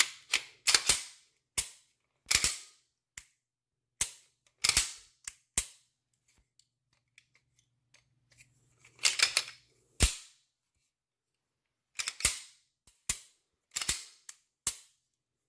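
Sharp metallic clicks and snaps of a CZ P10F pistol being put back together and worked by hand, its slide and newly fitted trigger clicking, in a dozen or more separate strokes with pauses between them.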